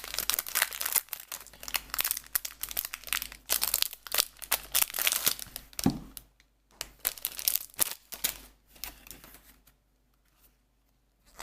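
The crinkly wrapping of a card-game starter deck box being torn open and crumpled: dense crackling and tearing that thins out and stops after about eight seconds.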